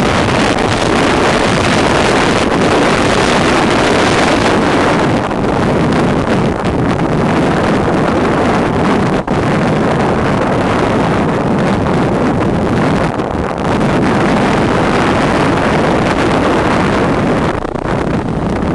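Loud, steady rushing of wind on the microphone together with a toboggan sliding fast over packed snow, with a brief drop about nine seconds in.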